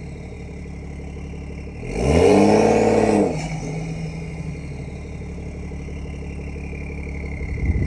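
BMW 340i's B58 turbocharged straight-six idling through an aftermarket exhaust, given a quick throttle blip about two seconds in that rises and falls back to idle within about a second and a half. A second blip starts near the end.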